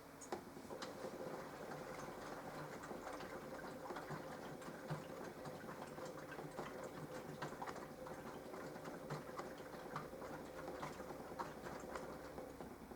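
Mini washing machine turning its drum in a wash phase: a steady motor hum with water sloshing and many small irregular clicks, starting suddenly and stopping shortly before the end.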